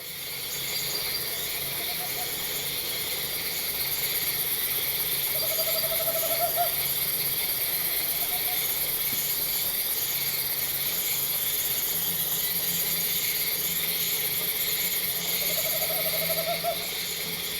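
Tropical forest ambience: a dense, steady chorus of insects, with a short rising trilled animal call heard twice, about six seconds in and again near the end.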